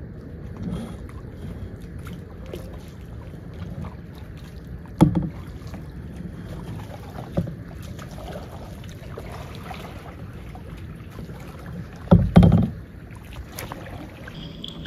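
Kayak being paddled: paddles working the water over a steady low rush of water and wind, with a few sharp knocks, the loudest pair about twelve seconds in.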